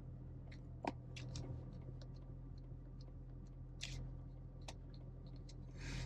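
Faint steady idle hum of the BMW E90's engine inside the cabin, with scattered light clicks and ticks as the steering wheel is worked back and forth. The knock from the steering rack, which the owner blames on a worn thrust piece, does not come.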